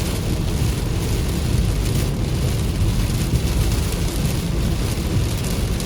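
A steady, loud rushing noise with a heavy low rumble, starting suddenly.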